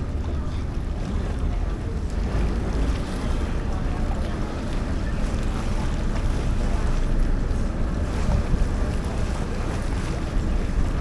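Tour boat under way: its engine running with a steady low rumble, water rushing along the hull, and wind buffeting the microphone.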